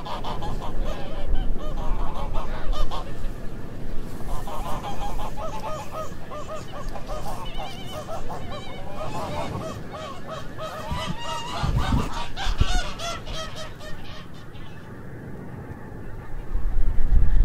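Large flock of snow geese calling all at once, a dense chorus of overlapping short honks and yelps that thins out about three seconds before the end. A low rumble comes in briefly midway and again at the very end.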